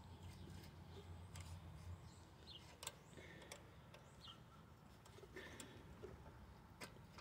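Near silence: a few faint clicks from the carburetor and its linkage being handled and fitted onto a lawnmower engine, with a few faint bird chirps.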